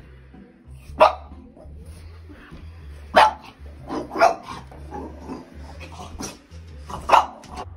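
French bulldog barking at a clothes iron being used, five short sharp barks with gaps between them, two of them close together near the middle.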